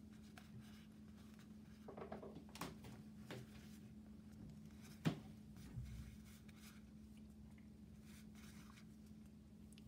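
Faint handling of a stack of Magic: The Gathering cards being leafed through by hand: a few soft clicks and slides as cards are moved, one sharper tap a little past halfway, over a steady low hum.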